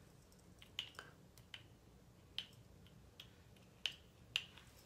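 Faint, irregular small clicks, about seven in all, from handling a NARS foundation bottle while dotting foundation onto the face.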